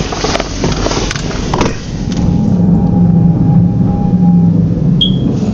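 Road traffic: a loud rush of a vehicle going by, then a steady motor-vehicle engine hum.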